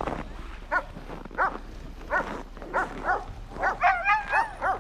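Sled-dog huskies barking and yipping in short, high calls: a few single calls at first, then many dogs calling over one another from about three and a half seconds in.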